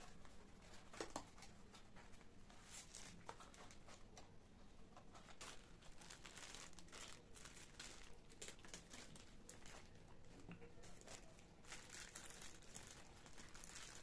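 Faint crinkling and rustling of thin plastic ice-cube bags as they are pulled out and unfolded by hand, in many short, irregular rustles.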